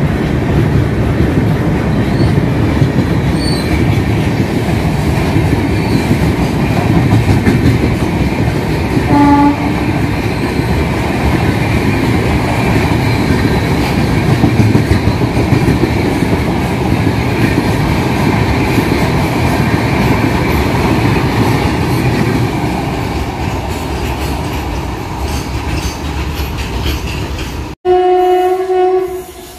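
LHB coaches of a Rajdhani Express passing at speed, a steady rumble and clatter of wheels on the rails, with a short tone about nine seconds in. Near the end, the sound cuts sharply to an electric locomotive's horn sounding one blast of about a second and a half.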